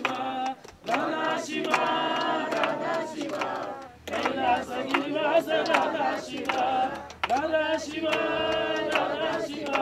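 A mixed group of men and women singing a Hindu aarti hymn together in phrases about three seconds long, clapping their hands in time.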